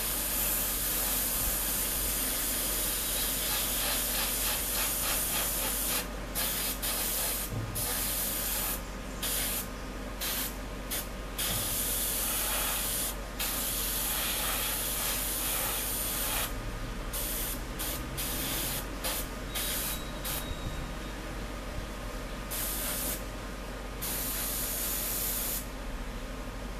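Airbrush spraying paint: a loud hiss of air and paint in long bursts, cut off and restarted many times as the trigger is released and pressed, the breaks coming more often in the second half. A steady low hum runs underneath.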